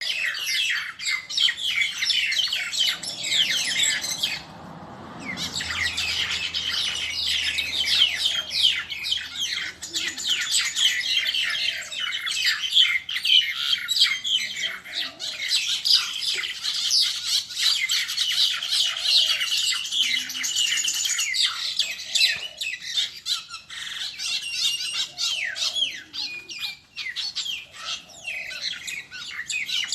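Many small birds chirping and squawking rapidly and without pause, in a squabble, with a brief lull about four and a half seconds in.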